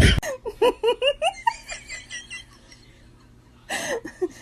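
A person giggling in a quick run of short, rising laughs that trail off after about two seconds. A short burst of noise follows near the end.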